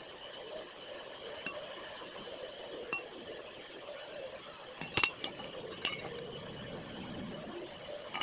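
Scattered light metallic clinks and taps of metal workpieces or tools being struck or handled in a blacksmith's shop, with a cluster of sharper clinks about five seconds in. A steady hum runs underneath.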